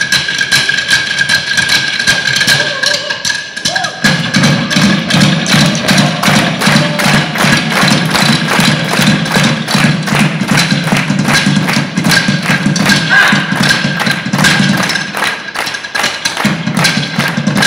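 Drumline percussion: several players beating drumsticks on wooden stools in a fast, steady rhythm of dry wooden clacks and thuds. The deeper thuds drop out briefly twice, once a few seconds in and again near the end.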